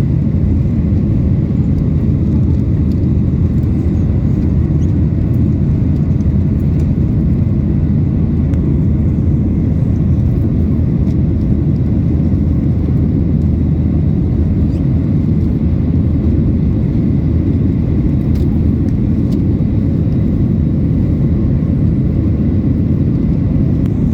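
Steady low roar inside the cabin of a Boeing 737-900ER in flight: its CFM56 turbofan engines and the airflow over the fuselage.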